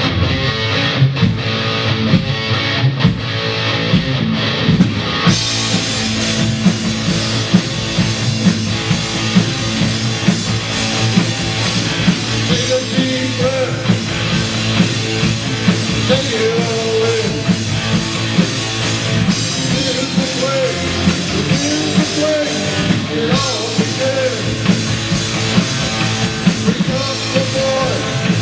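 Christian rock song: an electric guitar intro, with the full band and drum kit coming in about five seconds in. Later a lead melody with bends and slides rides over the band.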